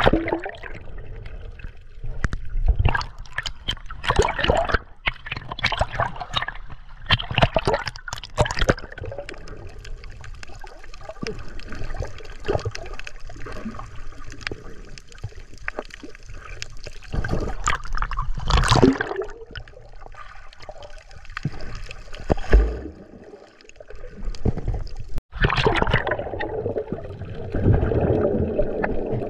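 Sea water splashing and gurgling in irregular strokes, with louder splashes about two-thirds of the way through and again near the end.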